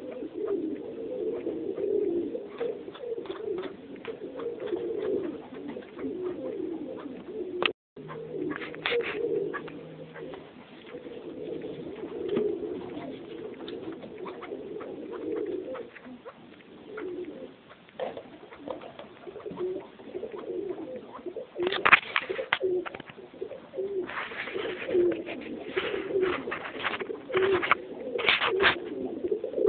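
A pen of partridges calling: a continuous low, warbling chatter of overlapping soft calls, with sharper, higher calls coming in about two-thirds of the way through and again near the end.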